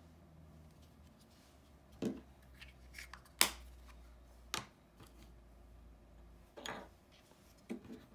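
Hard plastic action-camera mounting parts (quick-release base, locking screw and adhesive mount) clicking and knocking together as they are handled and fitted. About six sharp clicks, the loudest about three and a half seconds in.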